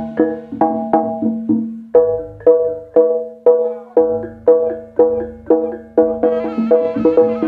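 Jaranan gamelan music: pitched bronze percussion struck in a steady beat about twice a second, each note ringing and decaying, over a sustained low ringing tone with drum. A higher melody instrument joins about six seconds in.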